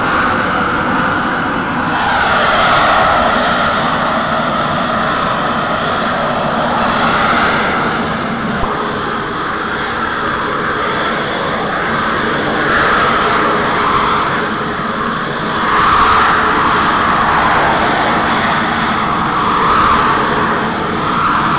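Jet aircraft engine running overhead: a loud, steady rushing noise that swells and fades every few seconds.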